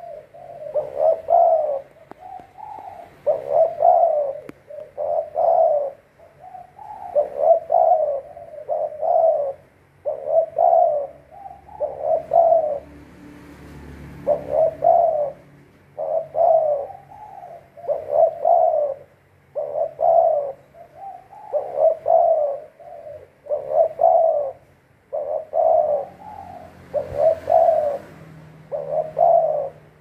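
Spotted dove cooing over and over, one short phrase after another with brief gaps between them.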